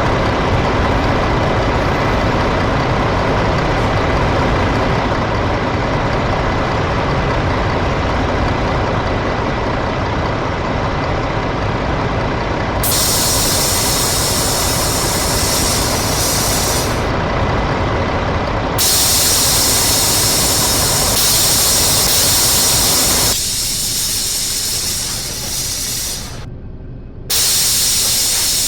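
Mercedes-Benz OM-457 inline-six turbodiesel in an O500UA articulated bus running steadily. From about halfway a loud, steady hiss comes and goes over it, and the engine sound weakens near the end.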